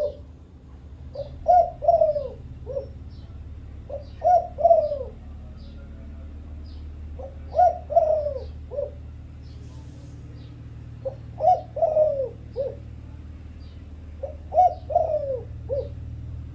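Spotted dove of the Thai-bred 'vân rồng' cooing strain cooing: five repeated phrases of several notes each, a few seconds apart. Small birds chirp faintly throughout, over a steady low hum.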